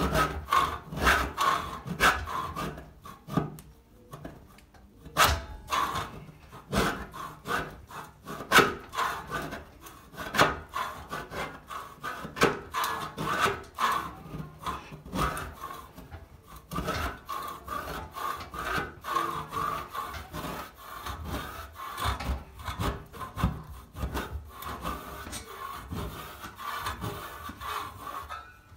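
A wide metal scraper scraping vinegar-soaked, painted Artex off a plaster ceiling in repeated short, rasping strokes. The softened coating comes away in pieces under the blade.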